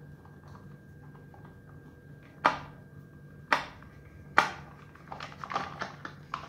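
Screwdriver turning a screw out of a clothes iron's plastic housing: three sharp clicks about a second apart, then a run of small quicker ticks and rattles near the end.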